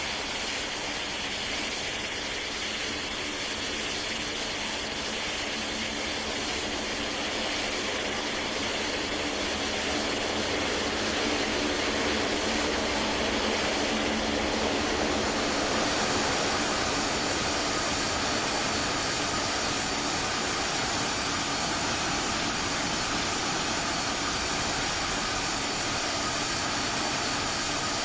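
Jet airliner's engines at takeoff power, a steady dense engine noise with whining tones that grows louder about halfway through as higher whines join in.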